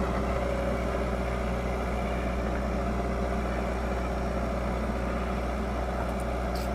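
Leyland Deere 435 backhoe loader's diesel engine running at a steady, unchanging speed.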